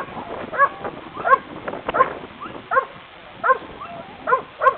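A dog barking over and over, short sharp barks coming about every three-quarters of a second, some seven in all.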